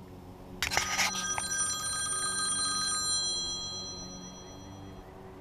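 Cell phone chiming: a brief rustle and knock, then a bell-like tone with several high notes that rings out and fades away over about four seconds.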